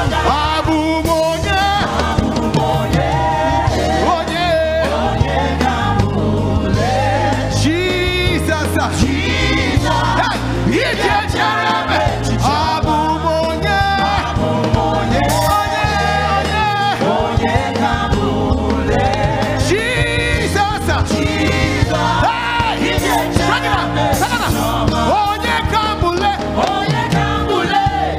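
Live gospel praise music: a male lead singer and backing vocalists singing together over a band with a moving bass line.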